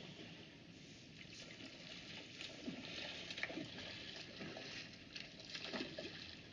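Faint river water running, with a few brief gurgles and splashes.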